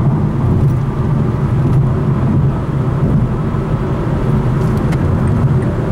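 Steady low rumble of tyre and engine noise from a car driving along a highway, heard from inside the cabin.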